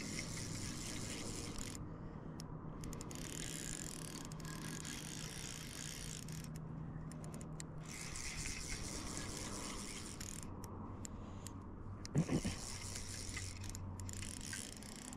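Fly reel's click-and-pawl drag buzzing as a strong hooked trout pulls line off. It comes in runs that stop briefly several times.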